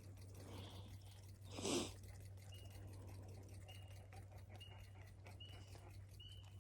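A bird calling a short high note over and over, about once a second, from about two and a half seconds in. A brief burst of noise a little under two seconds in is the loudest sound. A faint steady hum sits underneath.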